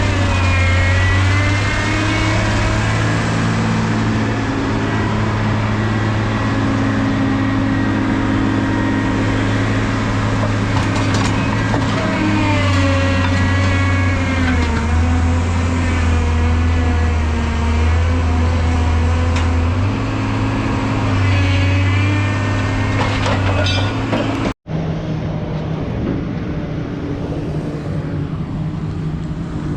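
Heavy diesel machinery running, its engine note stepping up and down with load, with whining sounds rising and falling in pitch over it. About 25 s in the sound cuts out for an instant and resumes as a steadier, lower engine hum.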